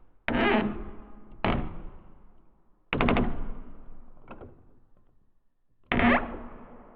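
Creaking wooden door, heard as a series of sharp creaks and knocks, each dying away over about a second. There are four main ones, plus a small click between the last two.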